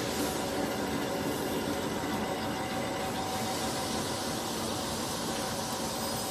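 Plastic bag-making machine running steadily, set to about 200 bags a minute: a continuous mechanical hiss and hum with a few faint steady tones.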